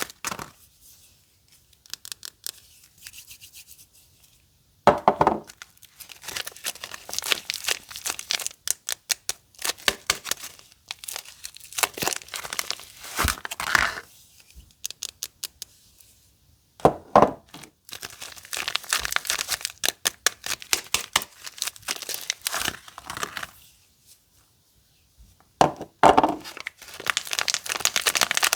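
Soap wrappers being torn open and crinkled by hand: runs of crisp crackling broken by short pauses, with a few louder crumples along the way.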